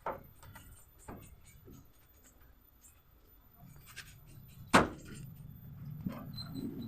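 Occasional sharp knocks and clicks, the loudest about five seconds in, over a low rumble that builds toward the end.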